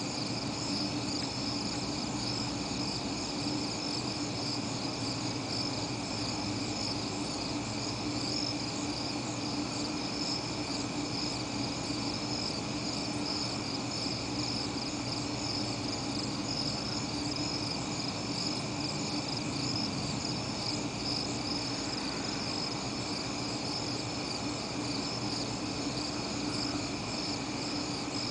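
A steady chorus of night insects chirring on without a break, high-pitched and shimmering, over a steady low hum.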